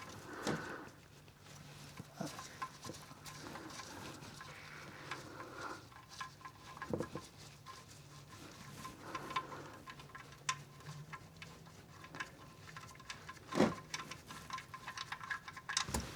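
Used engine oil draining from the oil pan's drain hole into a drain bucket, a faint steady patter, with a few small clicks and two sharper knocks.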